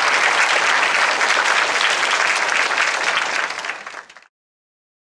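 Audience applauding after a lecture ends, a steady dense clapping that fades out and stops about four seconds in.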